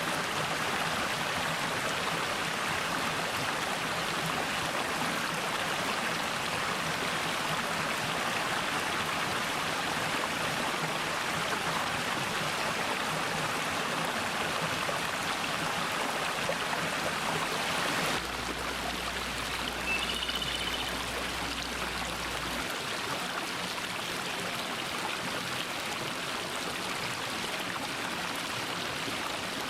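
Mountain valley stream running steadily over rocks, an even rushing of water that drops slightly in level about 18 seconds in. A brief, faint bird chirp sounds about 20 seconds in.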